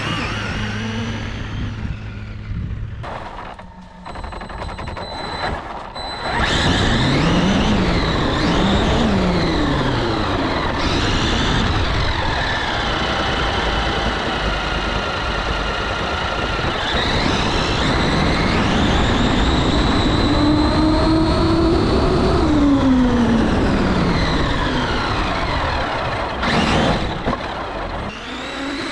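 Electric RC monster truck motor whining, its pitch rising and falling again and again as the throttle is worked, loud from about six seconds in.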